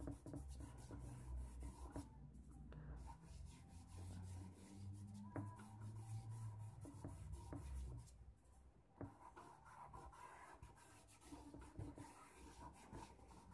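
Fingers rubbing charcoal into drawing paper to blend the shading: a faint, soft scuffing.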